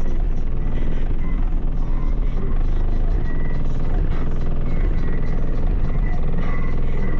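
Very loud, deep bass from a car's two 18-inch Sundown ZV4 subwoofers playing music. The bass pulses fast and unevenly and drowns out everything above it.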